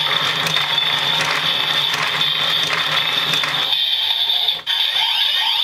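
DX Build Driver toy belt, with the Rocket and Panda Full Bottles inserted, playing its electronic sound effects as its handle is cranked: a mechanical ticking spin sound over a looping standby tune, which thins out about four seconds in.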